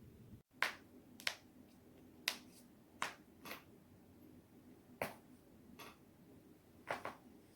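Joints being cracked: a string of about nine sharp, short pops at irregular spacing, a couple of them in quick pairs.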